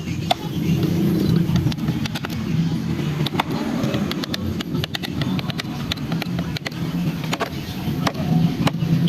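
A motor running with a steady low hum, with many sharp clicks and taps over it.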